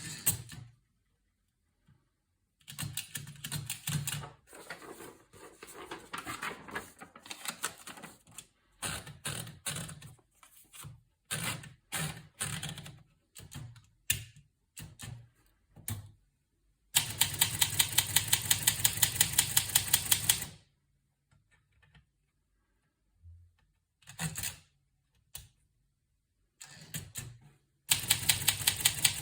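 Olivetti Lettera 32 portable typewriter being typed on: keys strike in irregular runs, then in a fast, even series about 17 s in and again near the end, with a few scattered strikes between.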